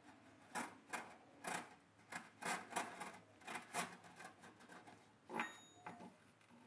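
Steel coil springs clicking and rattling against each other as a bundle of springs, smaller ones threaded inside a large one, is handled and turned over: about a dozen light metallic clicks, then a louder click about five seconds in with a brief ringing ping.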